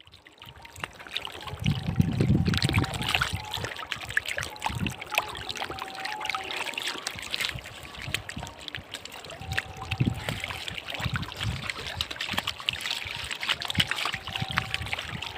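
Shallow flood water splashing and trickling, with many small splashes and repeated low thumps of someone wading and handling things in the water.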